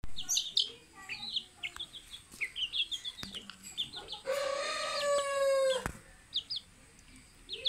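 Junglefowl chicks peeping in short, high cheeps while the flock feeds. About four seconds in, a rooster crows once, one long held call that breaks off sharply after nearly two seconds.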